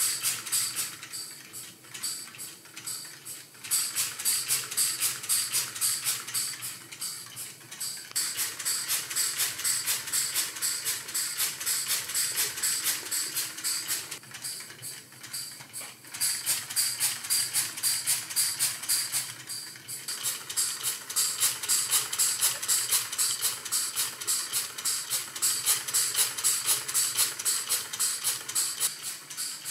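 Switchless Lego pneumatic engine running on compressed air: a fast, even train of puffs and clicks from its valves and pistons. It falls away and picks up again a few times as the throttle varies the airflow.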